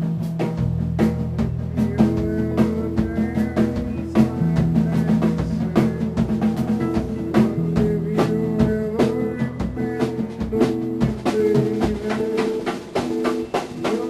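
Instrumental funk-rock jam: a drum kit keeps a busy beat with kick, snare and rimshots under a bass line, while a harmonica plays held, chord-like notes.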